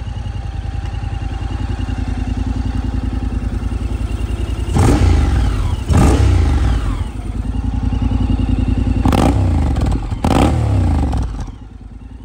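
2017 Honda X-ADV 750's parallel-twin engine idling in neutral, with the throttle blipped four times in two pairs; each time the revs rise and fall back to idle. The sound gets quieter near the end.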